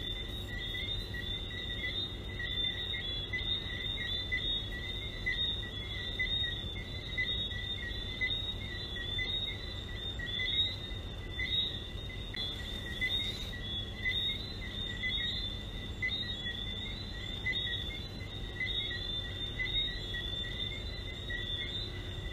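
A dense chorus of small frogs calling, many short high chirps overlapping without pause in two pitches, one high and one higher.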